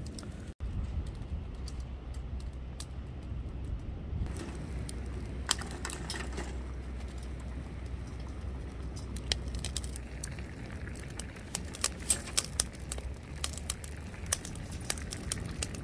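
Charcoal grill crackling and popping as gizzard shad cook over it, with sharp irregular crackles that come thicker near the end, over a low steady rumble.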